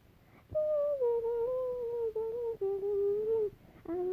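A voice humming a slow, wavering tune that starts about half a second in and breaks off briefly near the end before going on.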